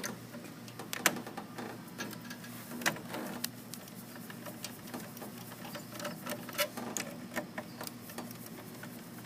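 Irregular small clicks and ticks of a hand screwdriver working PLC output terminal screws and plastic terminal connectors, with a sharper click about a second in and a quicker run of clicks later on, over a steady low electrical hum.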